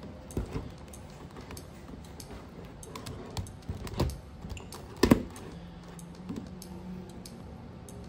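Large plastic puzzle cubes handled and set down on a desk: scattered clicks and knocks of plastic, the loudest a double knock about five seconds in.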